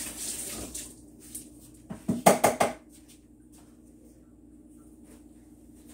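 Kitchen dishes or cookware knocking together off-camera: a short hiss in the first second, then a quick clatter of about four sharp, ringing knocks a couple of seconds in, over a faint steady hum.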